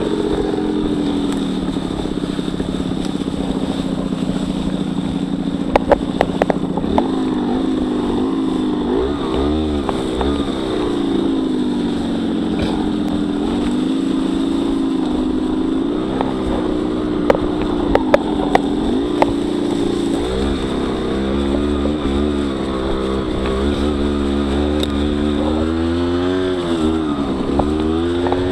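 Honda CRM50 two-stroke single engine, bored out to 63 cc, running while the bike is ridden along a dirt trail, its pitch rising and falling repeatedly with the throttle. A few sharp knocks come about six seconds in and again around seventeen to nineteen seconds.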